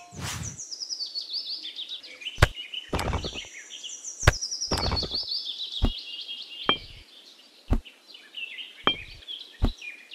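Birds chirping over and over in short calls that fall in pitch. Miniature clay bricks give sharp clicks and knocks about six times as they are picked up and set down, with a few short rustles in between.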